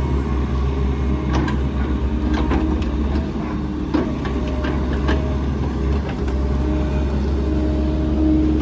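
Diesel engine of a heavy digging machine running steadily under load, with scattered short knocks and clanks as it digs around a tree's root base.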